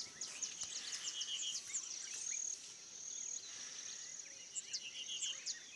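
Quiet field ambience of small birds giving many short, high chirps, with a steady high insect trill underneath and a couple of brief rapid trills.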